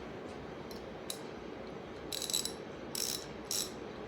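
Hand ratchet wrench from a DEWALT mechanics tool set being worked back and forth, its pawl clicking in short, crisp bursts several times, the strongest a little past two seconds in.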